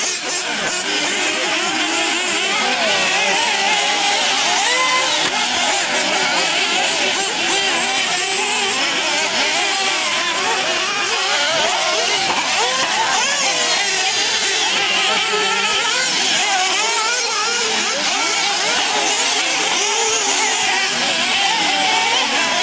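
Several nitro RC buggy engines, small glow-fuel two-strokes, revving up and down at once. Their many high pitches weave over one another without a break.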